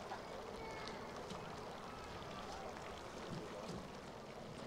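Faint steady outdoor background noise, with a few faint brief chirps and ticks over it.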